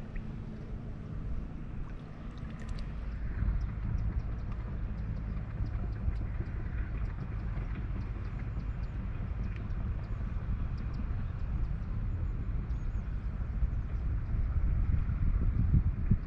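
Outdoor ambience: a steady low rumble with faint, short high chirps scattered through.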